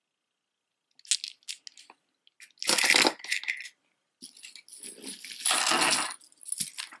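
Jewelry clinking and clattering as it is handled on a cloth-covered table: a strand of faceted stone beads put down, then a metal chain necklace picked up. It comes as scattered clicks, then two longer bursts of clatter, after about a second of silence.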